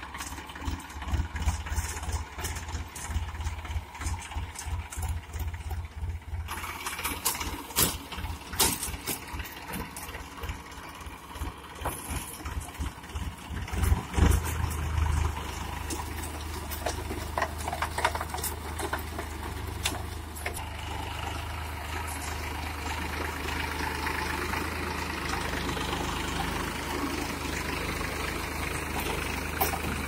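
Massey Ferguson 7250 DI tractor's three-cylinder diesel engine running as it pulls a Redlands round baler through straw, with clicks and rattles from the baler's mechanism. The engine note pulses through the first half, there is a louder moment about halfway, and it then settles into a steady drone.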